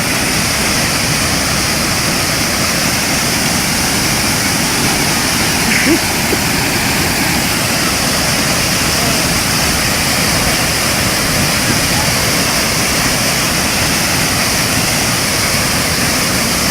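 Waterfall: a steady, loud rush of falling water, with one short louder blip about six seconds in.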